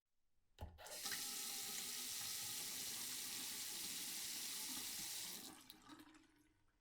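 Water tap turned on with a click, running steadily into a sink for about four and a half seconds, then shut off, the flow dying away with a few small clicks.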